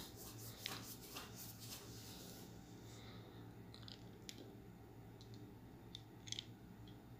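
Faint scraping and a few light clicks as a knife is drawn through a soft, cream-topped semolina cake and touches the glass baking dish.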